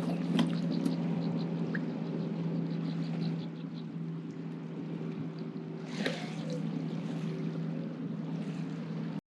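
Boat motor running with a steady hum. A few sharp clicks come near the start, faint quick ticking follows for a couple of seconds, and a louder knock comes about six seconds in.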